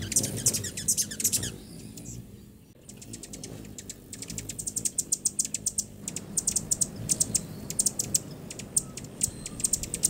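Hummingbirds chipping around a feeder: quick runs of thin, very high-pitched chips, with a short lull about two seconds in before the chipping picks up again and keeps going.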